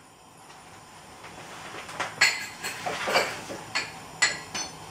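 Several sharp clinks of a utensil against a dish, starting about two seconds in after a quiet opening.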